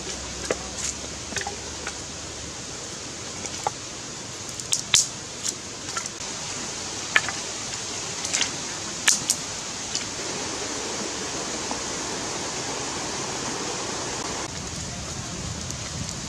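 Small fire of dry sticks being laid and lit: scattered sharp snaps and clicks of dry wood over a steady hiss, which grows denser about ten seconds in.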